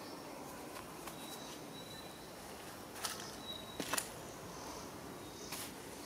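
Quiet outdoor ambience with a thin, high whistling call that comes and goes several times, and a few sharp clicks a little past the middle.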